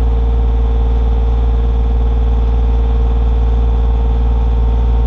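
Komatsu PC28 mini excavator's diesel engine running at a steady speed, a loud, even low drone with a constant hum.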